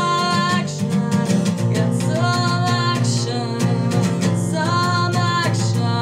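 Acoustic guitar strummed steadily, with a capo on the neck, under a woman singing long held notes about every two seconds.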